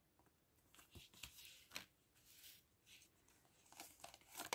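Faint rustling and tapping of tarot cards being handled and laid down, in a scatter of short scrapes and taps that come thicker near the end.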